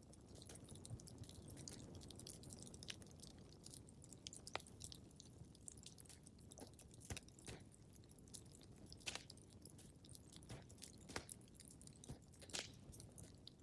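Fireplace crackling: a low steady rumble of burning wood with irregular sharp pops and snaps, faint.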